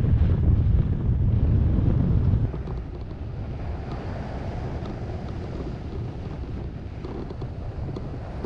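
Wind rushing over the camera microphone on a hang glider in flight: a heavy low buffeting that drops to a quieter, steadier rush about two and a half seconds in.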